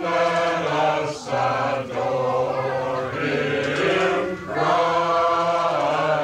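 A group of voices singing together, holding long notes like a choir.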